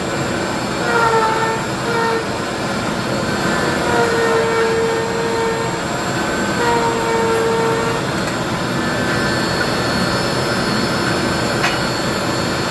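Router spinning in a router table: a loud, steady rushing drone with a high whining tone that comes and goes several times, sagging slightly in pitch at times.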